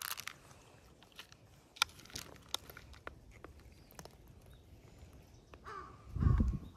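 Stray cats eating, with scattered sharp clicks and crunches. Near the end comes a brief pitched animal cry and a short low thud, which is the loudest sound.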